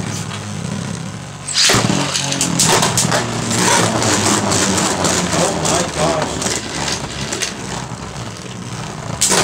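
Plastic Beyblade Burst spinning tops in a plastic stadium: at first a steady whir of one top spinning, then about a second and a half in a loud clatter as a second top comes in. After that come rapid sharp clacks and scraping as the two tops collide again and again, with a cluster of harder hits near the end.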